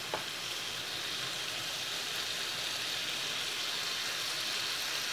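Shrimp, hotdog slices and vegetables sizzling steadily in a frying pan: an even hiss.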